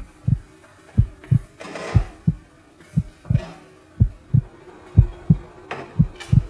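Heartbeat sound effect: a steady lub-dub, two low thumps about a third of a second apart, repeating about once a second.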